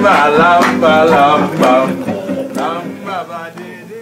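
A man singing an extempo calypso line over strummed acoustic guitar, the sound fading away through the second half.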